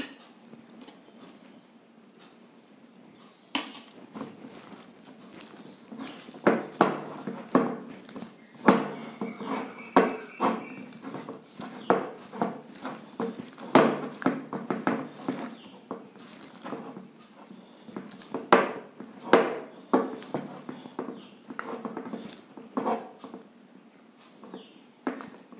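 Hands kneading and beating soft, wet besan (gram-flour) dough in a ceramic bowl: irregular slaps and knocks of dough and fingers against the bowl.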